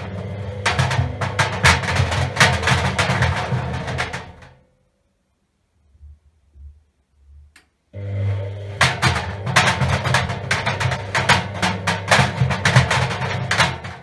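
Three tennis balls tumbling in the dry stainless-steel drum of a front-loading washing machine, knocking rapidly and irregularly against the drum and its paddles over the hum of the turning drum. About four and a half seconds in the drum stops and goes nearly silent for about three seconds, then turns again and the knocking resumes.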